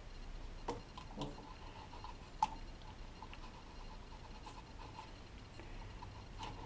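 Faint clicks and taps of small metal parts and tools being handled as screws are fitted to a Solex moped engine's crankcase, with one sharper click about two and a half seconds in.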